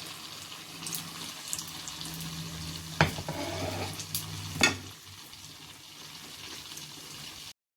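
Falafel frying in hot oil: a steady sizzle with scattered crackles, broken by two sharp knocks about three and four and a half seconds in. The sound cuts off suddenly just before the end.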